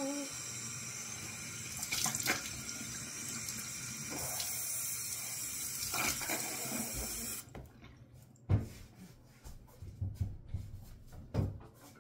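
Bathroom sink faucet running steadily, shut off abruptly about seven and a half seconds in, followed by a few short thumps.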